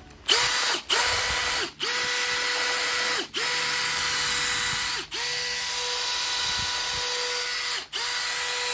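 Makita 18V brushless hammer drill-driver (DHP485) running free with no load, its trigger squeezed in six short runs with brief breaks between them. Each time the motor spins up quickly to the same steady high whine.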